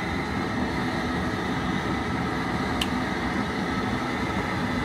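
Propane burner of a LOCO 90-quart seafood boiler running steadily under the pot, a continuous roar with the boil going. A short click about halfway through.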